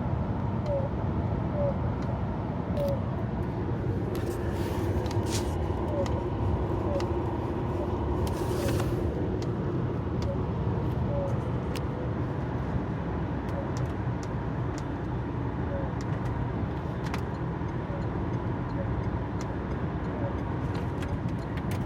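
Renault Safrane with a CVT gearbox running, a steady whine over the engine and road rumble; the dealer calls this whine common in CVT cars.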